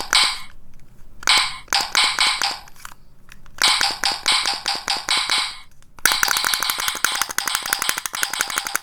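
A capsule toy's sound gimmick giving out rapid, evenly spaced clicking, a rattle heard first in three short bursts and then as a continuous run from about six seconds in.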